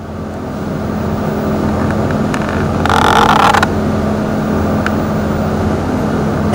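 A steady low mechanical hum that swells in, with a brief harsher noise about three seconds in.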